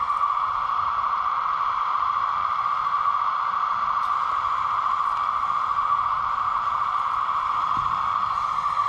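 Hydraulic pump of a 1:15-scale RC mini excavator running steadily, a constant whine, while the arm and bucket work loading rubble.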